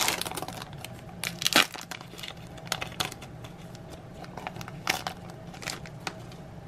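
Foil wrapper of a Bowman Chrome trading-card pack being torn open and crinkled by hand, in short irregular crackles, the loudest about one and a half seconds in and a few more spaced through the rest.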